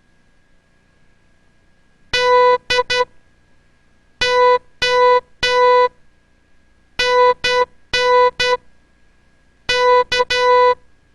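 Morse code practice tones: a single steady beep keyed on and off in short dits and long dahs. Four letters are sent about a second apart, reading dah-dit-dit, dah-dah-dah, dah-dit-dah-dit, dah-dit-dah, which spells D-O-C-K. The characters are sent fast with long gaps between them, the slowed-spacing style used for beginner copying.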